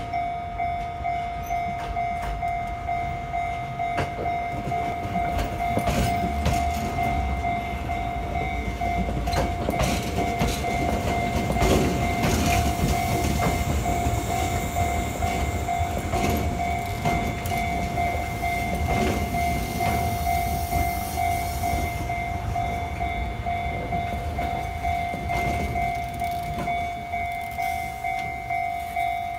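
A Japanese level-crossing alarm rings a steady tone while the Fujikyu Fuji Tozan Densha electric train rolls slowly past, its wheels clacking over the rail joints above a low rumble. The clacking is loudest around the middle, and the alarm cuts off at the very end.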